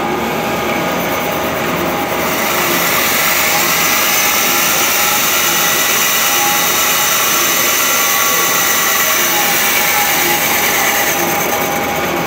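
Handheld grinder grinding metal, throwing sparks: a dense, loud hiss that starts about two seconds in and stops near the end. It sits over the steady running of a napkin paper machine.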